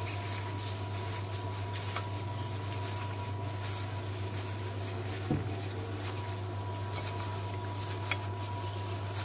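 A gloved hand squishing and tossing raw shrimp with chopped vegetables and spices in a glass bowl, heard as a few faint soft knocks over a steady low hum and a thin steady high tone.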